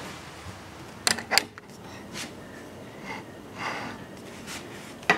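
Handling noise in a quiet room: two sharp knocks about a second in, a few soft rustles, and another sharp click near the end.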